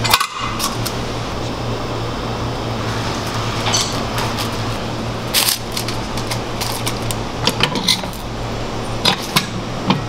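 Metal clinks and taps from a stainless-steel manual hamburger patty press as its cup is loaded with a paper sheet and a ball of ground beef, over a steady low hum. A few scattered sharp clicks sound, with a quick cluster near the end.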